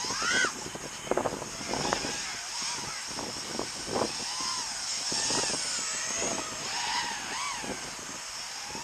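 FPV quadcopter's electric motors and propellers whining in flight, the pitch rising and falling again and again as the throttle changes.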